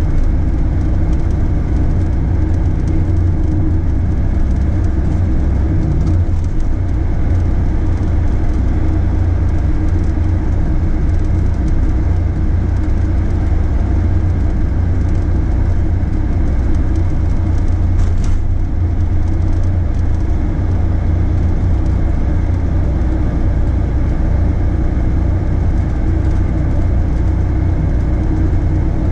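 Steady low rumble of a vehicle in motion, engine and running noise holding an even pace throughout.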